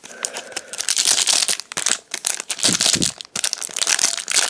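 Plastic packaging and foil booster-pack wrappers crinkling and crackling as they are handled, with irregular rustles throughout.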